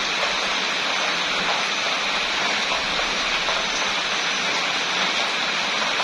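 Rain falling steadily, a dense, even hiss that does not change.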